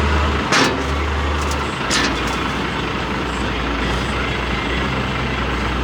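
A vehicle engine running steadily nearby, a constant low rumble, with a few sharp clicks about half a second and two seconds in.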